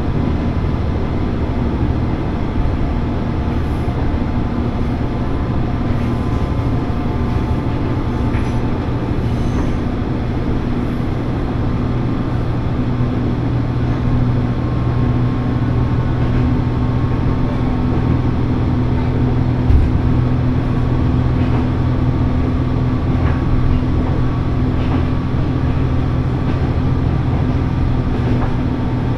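Cabin sound of a diesel railcar running along the line: a steady engine drone with wheels rumbling on the rails, and a single knock about two-thirds of the way through.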